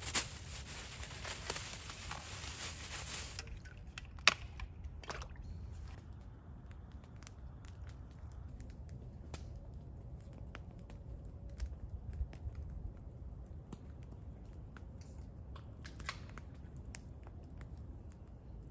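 A plastic bag crinkling for about three seconds, then a wood campfire crackling with scattered sharp pops over a steady low rumble; one loud snap comes about four seconds in.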